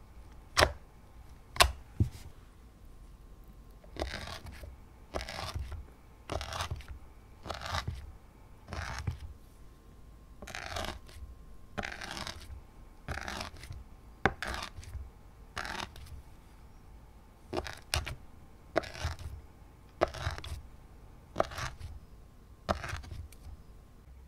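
Glossy slime being worked: two sharp sticky pops as fingertips press into it, then a run of short scraping, squishing strokes about one a second as a thin stick is pressed and drawn across it to score lines.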